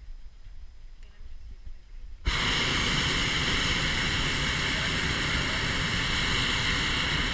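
A hot air balloon's propane burner firing in one long blast: a loud, steady rushing noise that starts abruptly about two seconds in, lasts about five seconds and cuts off near the end.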